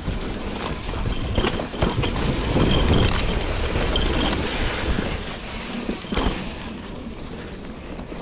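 Mountain bike riding a dirt trail: a constant rush of tyre and wind noise with sharp knocks and rattles as the bike hits bumps, loudest around three seconds in and easing off near the end.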